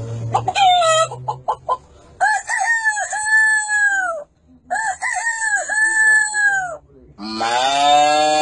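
Short clucks, then three long cock-a-doodle-doo crows of about two seconds each, the last one lower-pitched and louder.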